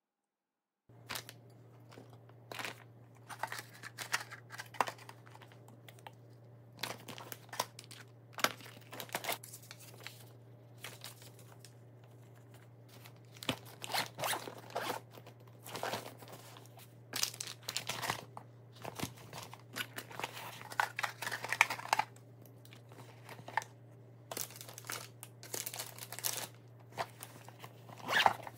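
Zippers being pulled shut on an insulated fabric lunch bag and a neoprene lunch tote, with irregular rasps and rustles of the bags being handled. A steady low hum runs underneath.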